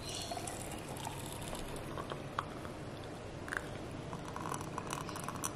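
Thick blended coffee mixture pouring slowly from a blender cup into a glass jar over ice, faint, with a few soft clicks and ticks.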